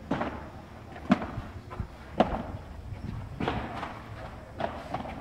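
Padel rally: a padel ball knocked back and forth by solid paddle rackets, bouncing on the court and glass walls, five sharp hits about a second apart.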